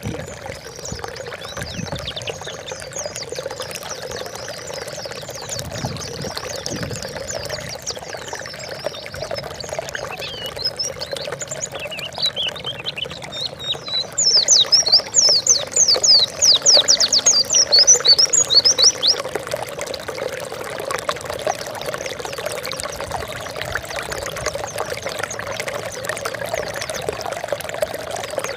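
White-eye (pleci) singing over a steady sound of pouring, trickling water: faint high twittering at first, then about five seconds of loud, rapid, high-pitched notes midway through.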